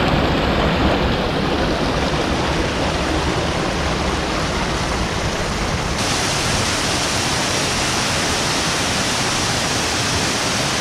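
Waterfall and fast-flowing creek water rushing steadily. The sound turns brighter and hissier about six seconds in.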